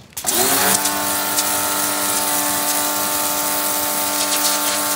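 STARQ ST1800U pressure washer, an 1800-watt universal motor, starting abruptly about a quarter second in. Its pitch rises quickly, then it runs steadily with a hum, under the hiss of the high-pressure water jet striking paving tiles.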